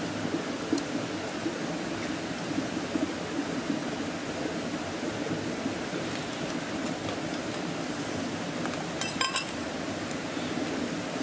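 Steady rush of a river flowing over rocks. About nine seconds in comes a short run of sharp clinks.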